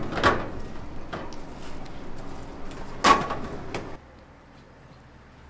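A run of knocks and clatters from hard objects, the two loudest about three seconds apart, over a steady background noise that drops away about four seconds in.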